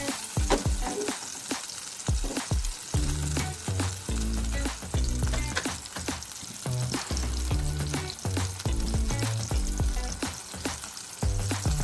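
Fish frying in hot oil in a pan: a steady sizzle with many sharp crackles and pops.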